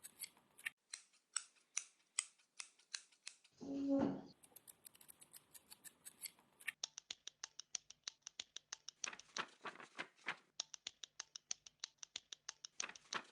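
A rapid, uneven series of short sharp clicks, several a second, with a brief voice sound about four seconds in.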